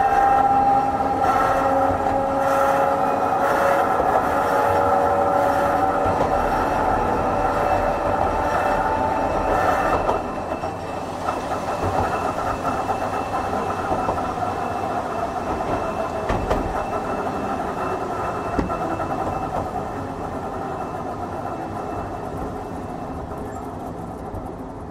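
Hankai Tramway Type 351 tram with nose-suspended traction motors, heard from on board. The motor and gear whine falls slowly in pitch as the tram slows and cuts out about ten seconds in. The car then rolls on with a wheel-and-rail rumble and a couple of knocks, getting quieter toward the end.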